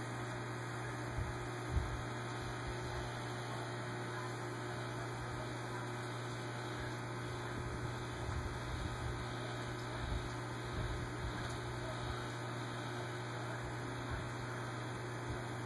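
Steady low electrical hum of aquarium equipment, with a few faint low thumps about two seconds in and again around the middle.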